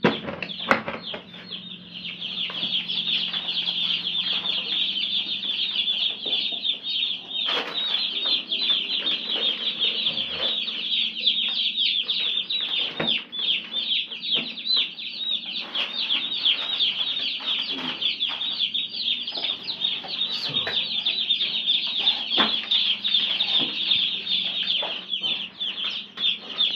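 A box of day-old Cobb 500 broiler chicks peeping without a break: a dense chorus of high cheeps. A few sharp knocks break in now and then as the plastic drinkers and feeders are handled and set down.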